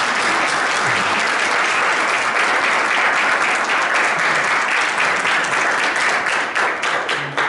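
Audience applauding: steady, dense clapping of many hands that stops near the end.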